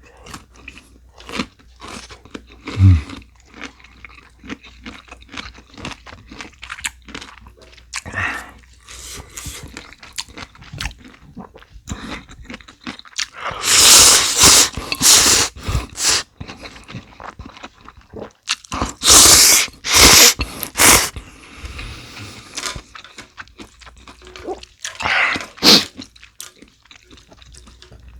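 Close-miked eating of instant ramen with cubed radish kimchi: crunching and chewing with many small mouth clicks, and two stretches of much louder noisy bursts midway.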